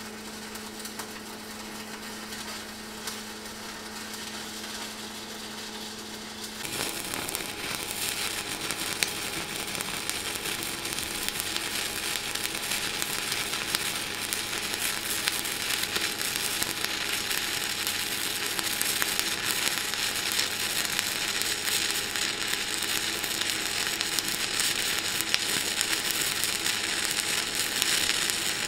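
Stick (MMA) welding arc from a 2.6 mm LB52U electrode at about 60 amps, crackling and sizzling steadily as the weld is laid. It is quieter at first and grows louder and closer from about seven seconds in.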